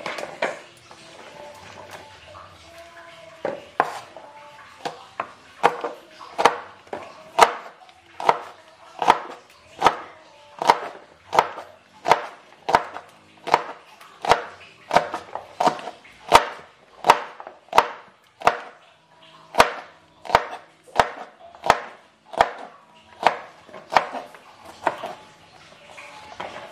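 Kitchen knife chopping on a cutting board, cutting vegetables with steady strokes at about three every two seconds, starting a few seconds in, over faint background music.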